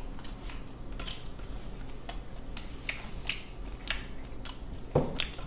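Eating sounds: chewing, with scattered small clicks of chopsticks picking at food in a plastic convenience-store lunchbox tray. One short knock near the end.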